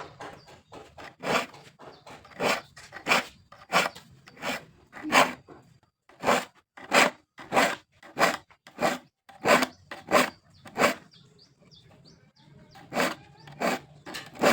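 Hand saw being worked in short rhythmic strokes, about one and a half a second, with a break of about two seconds near the end.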